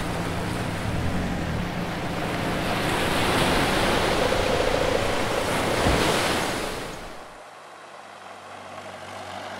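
Water splashing and spraying as a Toyota four-wheel drive ploughs through a shallow creek. The splashing swells in the middle, then drops off sharply about seven seconds in to a much quieter rush.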